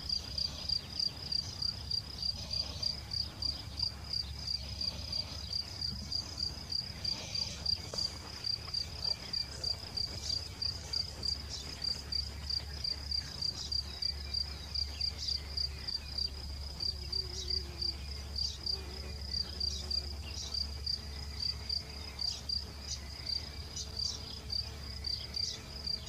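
Steady insect chirping: one high note pulsing a few times a second without a break, over a faint low rumble.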